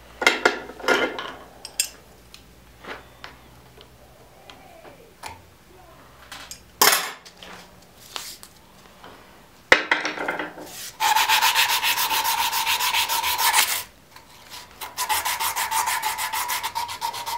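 A strip of sandpaper is worked back and forth shoe-shine style across the front end of Micarta knife handle scales clamped in a vise, in fast rubbing strokes. The strokes start about eleven seconds in, stop briefly, then start again. Before that come a few light clicks and taps of handling.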